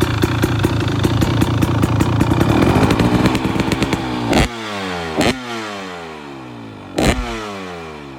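2023 KTM 300 XC's fuel-injected two-stroke single running through a Pro Circuit silencer with spark arrestor: rapid firing, revs climbing about three seconds in, then the pitch falls steadily away as it gets quieter. Three sharp cracks cut through as the revs fall.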